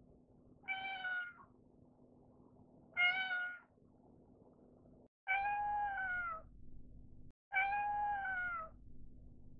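White short-legged Munchkin cat meowing four times: two short meows, then two longer ones that drop in pitch at the end.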